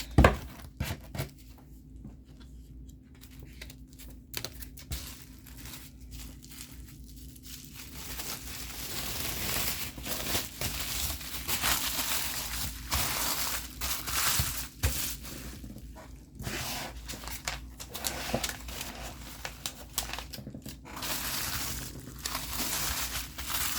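Bag crinkling and rustling in uneven bursts as a finished book is packed into it, heavier from about eight seconds in, after a single sharp knock at the very start.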